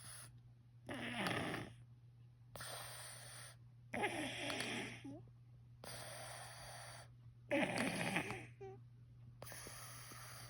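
Snoring in a steady rhythm: three loud snores on the breath in, a little over three seconds apart, each followed by a quieter breath out.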